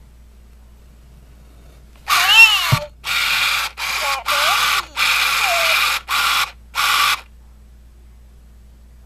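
An original 1999 Tiger Electronics Furby chattering in its electronic voice in about seven short bursts, the first the loudest and gliding in pitch. Its internal motor whirs as the eyes and ears move.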